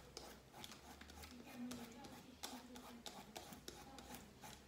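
Vegetable peeler scraping the skin off a zucchini in a quick run of short, faint strokes, several a second.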